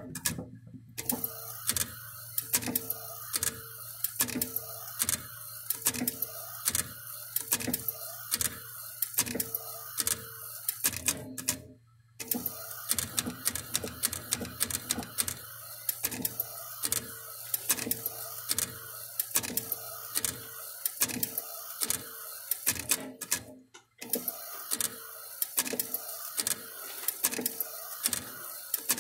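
Direct-print poker-chip printer running: its print carriage shuttles with a rhythmic mechanical clicking and whirring over a low hum, about three strokes every two seconds. It stops briefly twice, once near the middle and once near the end.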